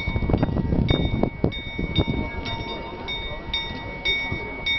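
The small bell of the Prague Astronomical Clock, rung by the skeleton figure of Death, clanging repeatedly about twice a second over the murmur of a crowd that is loudest in the first two seconds.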